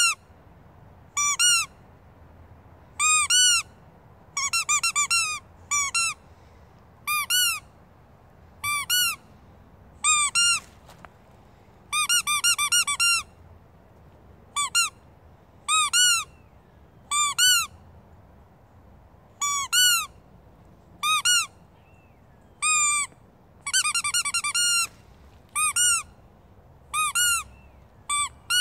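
Squeaky dog toy squeezed again and again: short high squeaks that rise and fall in pitch, some single and some in quick runs of three or four, with gaps of a second or two between.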